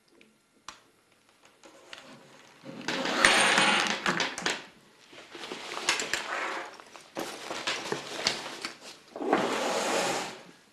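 Rustling and scraping handling noise from the pump's fabric carrying bag being picked up and handled, in four bursts that start a few seconds in.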